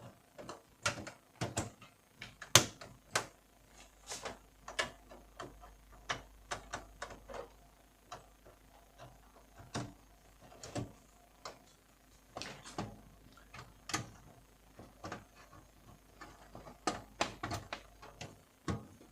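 Irregular clicks and knocks of computer hardware being handled: a graphics card being fitted back into a PC case, with metal and plastic parts tapping and clicking.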